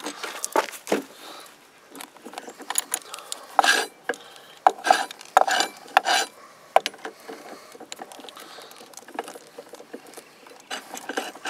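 Socket wrench working the bolt on a string-trimmer head, with the shaft held by a screwdriver: irregular metal clicks and clinks of tool on bolt and housing, in short clusters.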